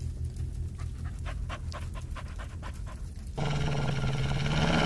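A wolf panting in quick short breaths, about five a second. About three and a half seconds in, a low, steady growl starts and is the loudest sound.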